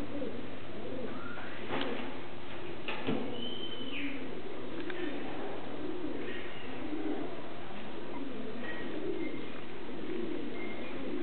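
Many pigeons nesting in the rafters cooing continuously, overlapping low coos one after another, with a couple of sharp clicks about two and three seconds in.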